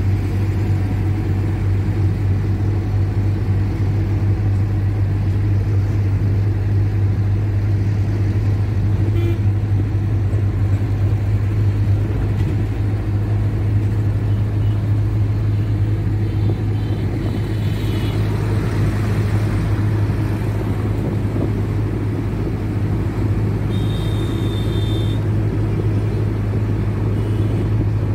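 Steady engine and road rumble inside a moving taxi, with a constant low drone. A brief high-pitched beep sounds late on.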